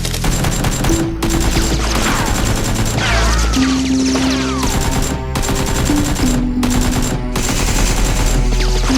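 Action music with held bass notes, over rapid continuous machine-gun fire.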